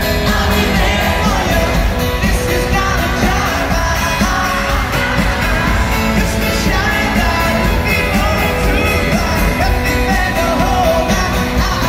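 Live pop-rock band playing, with a male lead vocal over acoustic guitar, bass and drums, heard from the audience at a concert.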